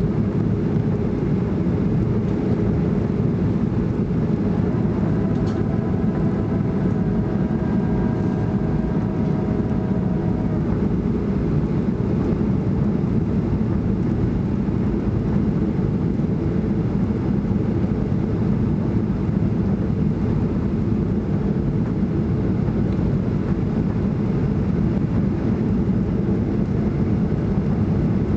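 Steady cabin noise of a Boeing 737-800 in flight: an even low roar of engines and airflow. For about five seconds, starting around 5 s in, a faint whine of several steady tones sits over it.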